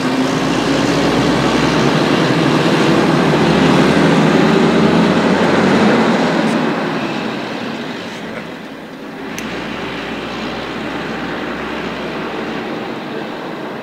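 Ikarus 250 coach driving past: diesel engine and road noise swell to a peak about five seconds in, then die away. After a short dip, a steadier run of vehicle noise follows.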